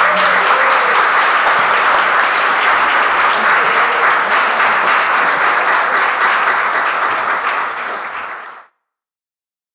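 Audience applauding steadily. It tails off slightly and then cuts off suddenly near the end.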